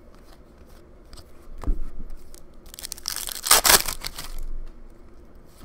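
A foil hockey-card pack wrapper being torn open and crinkled, loudest about three and a half seconds in. A single thump comes about a second and a half in.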